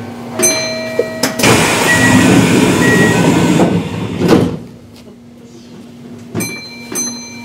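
Pneumatic sliding doors of a Kintetsu 1249-series train closing: a loud rush of air lasting about two seconds, ending in a thud as the doors shut. Short tones sound about half a second in and twice near the end, over a steady low hum.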